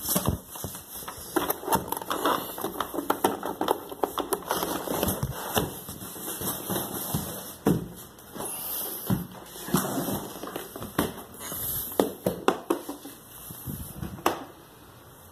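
Cardboard shipping box being pulled open and handled by hand: irregular crackling, scraping and knocking of the cardboard flaps.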